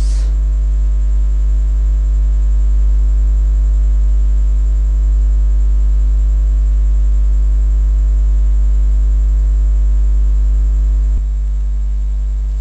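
Steady, loud electrical mains hum with a buzzy stack of overtones in the recording chain, and a short click right at the start.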